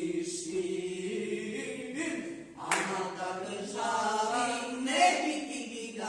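Voices singing or chanting in long, held notes that slide up and down in pitch.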